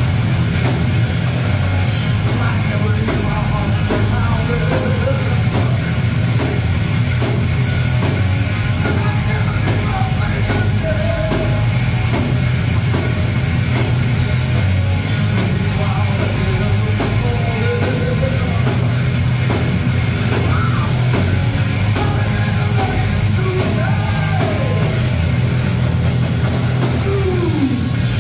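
Live heavy metal band playing loud: distorted electric guitars and bass over a drum kit keeping a steady driving beat, with a melodic line wavering in pitch above them.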